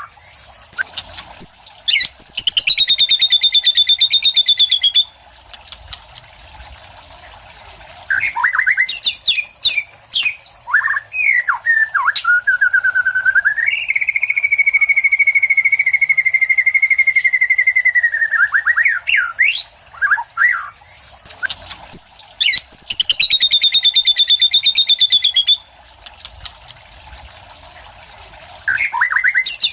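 A white-rumped shama (murai batu) singing loud, varied whistled phrases, a competition song rich in mimicked material from other birds. It has two long, fast wavering trills, one near the start and one about two-thirds through, and a long steady whistle held for about five seconds in the middle.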